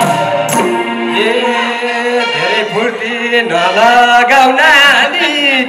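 Nepali Teej song music, a singer holding long, wavering notes over the accompaniment.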